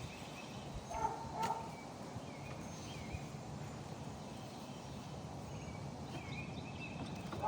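Outdoor background of steady low noise with faint bird chirps, and two short sharp sounds about a second in, half a second apart.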